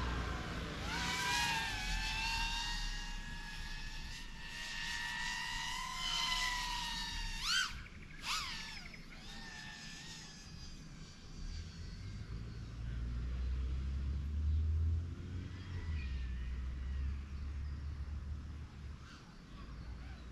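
Small FPV quadcopter's brushless motors and three-inch props whining at a steady high pitch that wavers with throttle, then two quick rising-and-falling swoops about seven and a half and eight seconds in. The whine then fades, with a low rumble in the second half.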